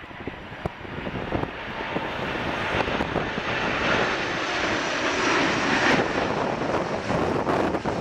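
Jet engines of an Airbus A330-300 (Rolls-Royce Trent 700s) on final approach with gear down. The engine noise grows louder over the first few seconds as the airliner comes low overhead, then holds steady.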